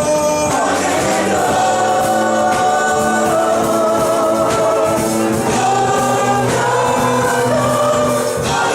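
Gospel worship music: a choir singing over a band with drums.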